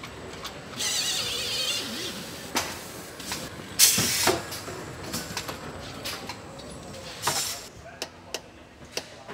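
Car assembly-line work: short hisses of compressed air from pneumatic tools, the loudest about four seconds in, among scattered metal clanks and clicks.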